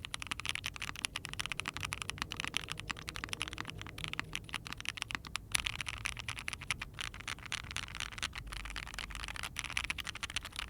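Fast, continuous typing on an Ai03 Vega mechanical keyboard with factory-lubed Agile Moon linear switches, a POM plate and GMK keycaps: rapid, uneven keystroke clacks. The owner finds these switches over-lubed, scratchy and dead-sounding.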